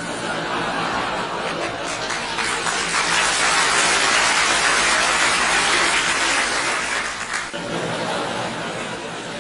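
Studio audience laughter with applause, swelling to a peak in the middle and dying down near the end: a comedy laugh track.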